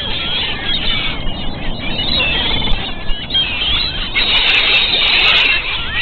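A flock of gulls calling, many short squealing cries overlapping, thickest about four seconds in, over a steady rush of surf.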